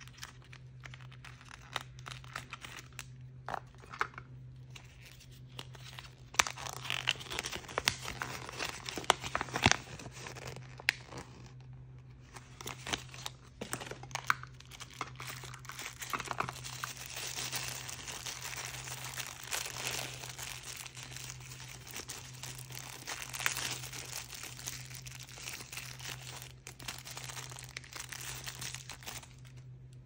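Toy packaging being crinkled and torn open by hand: wrappers rustling with sharp crackles, sparse at first and then dense from about six seconds in, stopping just before the end.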